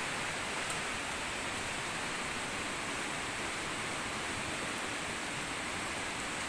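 Steady, even hiss of rushing water in the rainy forest, with a faint tick about a second in.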